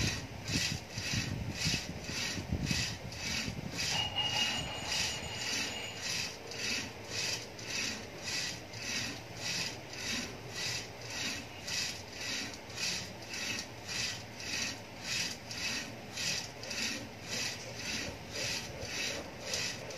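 Rope running back and forth over an overhead exercise pulley as its two handles are pulled alternately up and down: an even rubbing rhythm of about two strokes a second.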